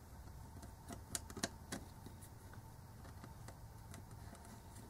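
Faint clicks and ticks of a precision screwdriver bit working against a small screw in a plastic USB charger housing, with a few sharper clicks about a second in.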